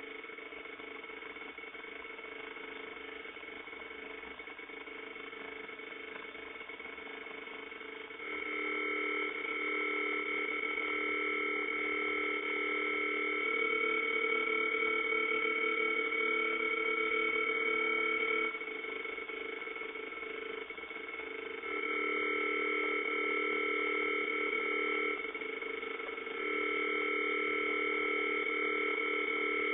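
A REM Pod's electronic alarm sounding a steady, sustained tone. It jumps louder about a third of the way in, dips back twice and comes back loud each time. The alarm is the sign that something is disturbing the pod's field, which the investigator takes for spirit activity.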